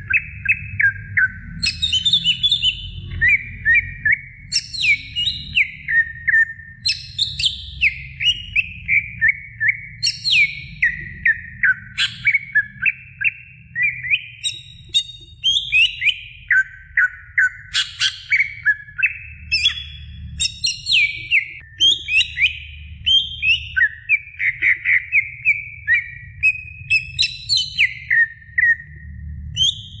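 Cucak ijo (green leafbird) singing a continuous, fast, varied song of chirps and whistles, in quick phrases of mostly falling notes with no pauses longer than a moment, over a low background rumble.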